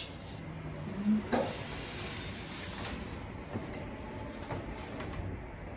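Soft, steady rustling and crinkling of packing paper and artificial floral picks as they are handled and packed into a plastic storage bin.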